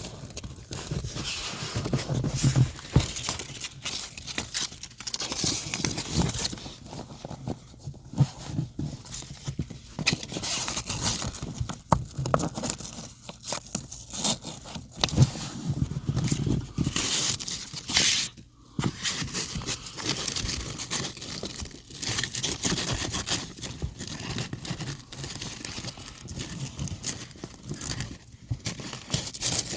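Fabric seat cover and its hook-and-loop Velcro strips being handled, tucked and pressed into place: irregular rustling and scraping with many short clicks, pausing briefly past the halfway point.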